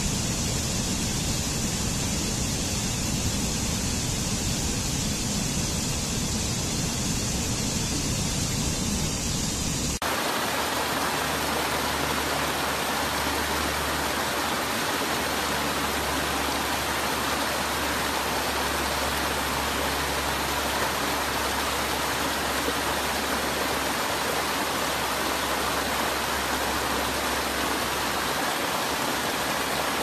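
Waterfall: a steady rush of falling water. About ten seconds in, it switches abruptly to a different falls with a brighter, hissier sound.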